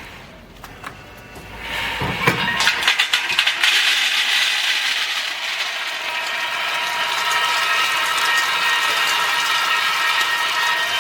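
Peanut roasting machine starting up: quiet at first, a burst of rattling about two seconds in, then a steady mechanical whir with a whine.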